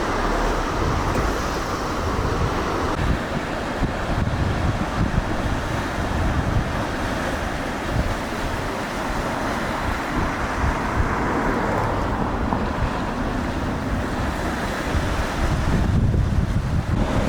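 Sea surf washing onto a beach, with gusty wind buffeting the microphone; the low rumble swells near the end.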